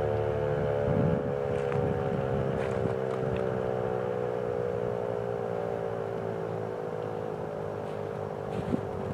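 American Signal T-128 siren winding down at the end of a test, its tone sliding slowly and steadily lower as it coasts to a stop.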